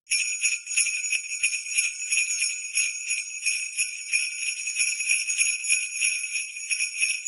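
Sleigh bells shaken in a fast, steady jingle, the bells alone with no other instrument.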